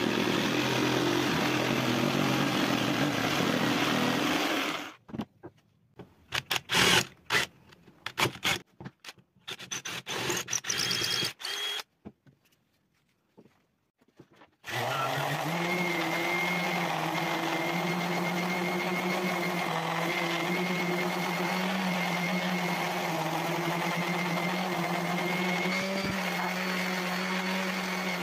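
Jigsaw cutting through a wooden board, stopping about five seconds in. Then a stretch of scattered short knocks and clatter with quiet gaps. From about fifteen seconds in, a random orbit sander runs steadily on wood with a constant hum.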